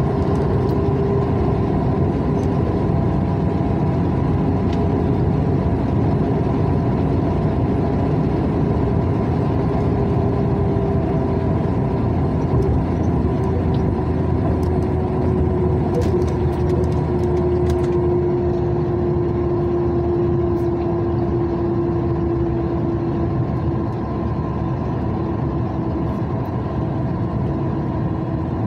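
Steady driving noise of a vehicle cruising on a concrete highway: engine and tyre drone with a humming tone that slowly falls in pitch.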